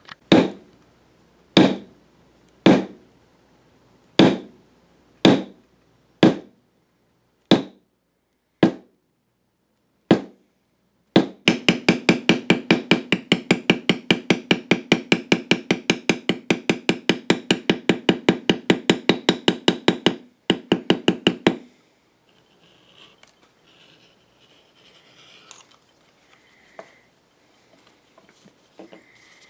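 Metal leather stamp struck with a mallet into vegetable-tanned leather on a stone counter. First come single blows about a second apart, then a rapid run of strikes at about six a second for about ten seconds. After that come only faint handling sounds.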